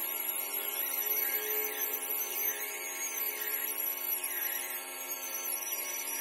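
Handheld stone polisher spinning at high speed with a steady whine as its polishing pad works the edge of a granite sink cutout.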